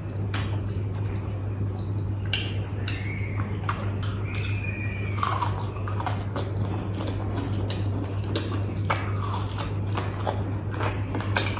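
Close-miked chewing of syrupy jalebi dipped in rabri: biting and wet mouth sounds, with many small irregular clicks, over a steady low hum.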